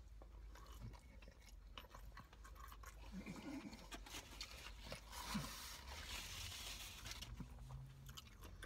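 A person quietly chewing a mouthful of fish sandwich, with faint crunching and small mouth sounds.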